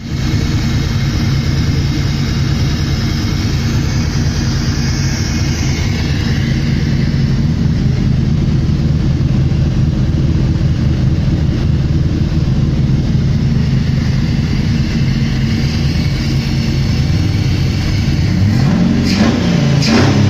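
Chrysler V8 running steadily on its first start-up, with the revs rising and falling briefly near the end.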